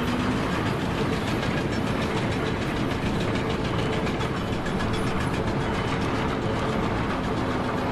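A heavy engine or machine running steadily, giving a continuous loud mechanical din with a faint steady hum.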